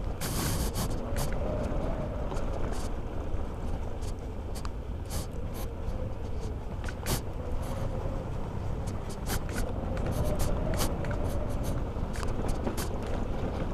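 Honda ADV scooter riding downhill: steady wind and road rumble with a faint wavering whine, broken by scattered sharp clicks.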